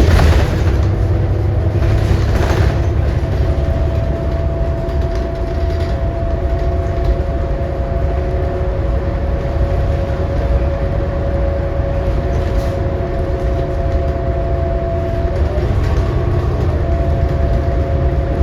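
New Flyer XD40 transit bus heard from on board while under way: a steady low rumble from the drivetrain and road, with a steady whine over it. A short rattle comes right at the start and again about two and a half seconds in.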